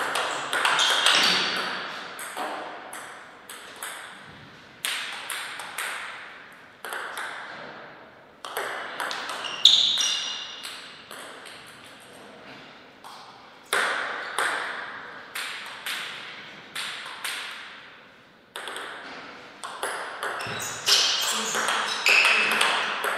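Table tennis rallies: the ball clicks off the paddles and bounces on the table in a quick back-and-forth. There are several rallies of a few seconds each, with short pauses between points.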